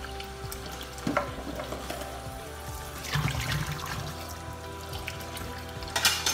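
Kitchen tap running a thin stream into a stainless steel sink while hands rinse chillies, tomatoes and onion under it, with a few splashes and knocks as they are handled, the loudest near the end.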